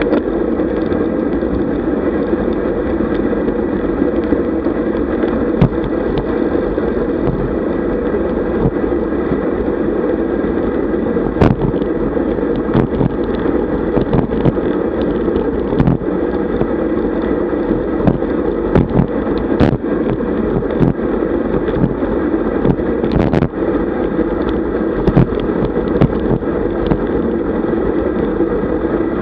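Steady wind and road rumble picked up by a camera mounted on a road bike riding at speed, with scattered sharp knocks and rattles from bumps in the road, more of them in the second half.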